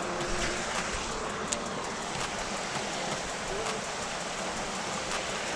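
Steady rush of flowing creek water, with a few faint ticks.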